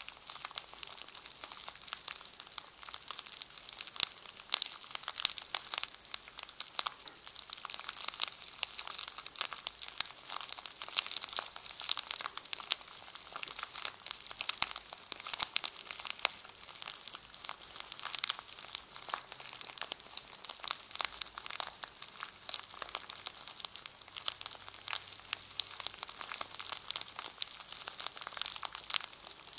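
A brush in its packaging being handled, the wrapper crinkling and crackling in a dense, unbroken stream of small crackles.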